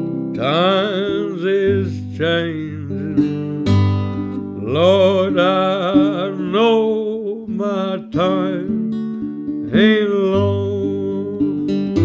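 Music: acoustic guitar chords over a steady low bass, with a wavering, sliding wordless melody line in three phrases.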